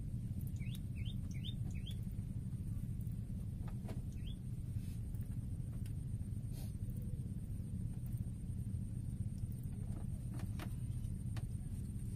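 A small bird gives a quick run of four short rising chirps, then one more a couple of seconds later, over a steady low rumble.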